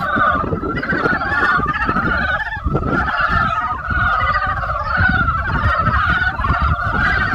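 A dense spring chorus of many frogs calling at once, a continuous mass of rapid pulsing croaks with no pauses. A low rumble runs underneath.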